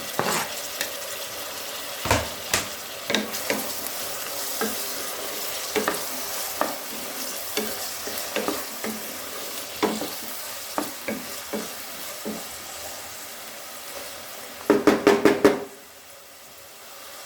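Vegetables sizzling in oil in a pan while being stirred, with irregular clicks and scrapes of the utensil against the pan. Near the end there is about a second of quick, louder scraping strokes.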